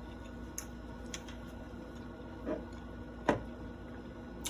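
Someone eating at a table: a few soft clicks and taps, the loudest about three seconds in, and a short mouth sound near the middle, over a steady low hum.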